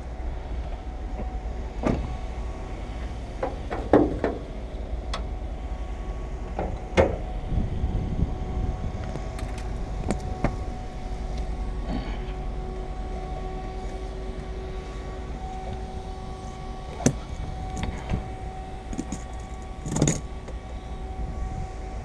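Scattered clicks and knocks of hand work on a car's windshield frame, a few sharper ones spread through, over a steady low hum.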